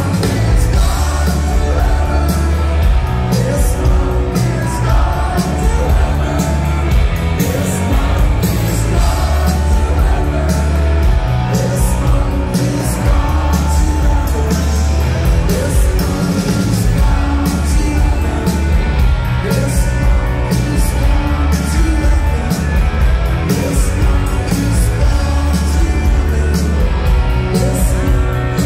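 Rock band playing live: electric guitars, heavy bass and drums with a steady beat under a sung lead vocal, loud and continuous.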